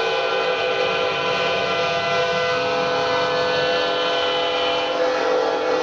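Recorded train horn blasting loudly through studio speakers: one steady chord of several tones, held without a break.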